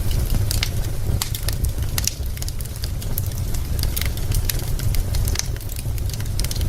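Wood fire crackling: frequent sharp pops and snaps of burning logs over a steady low rumble.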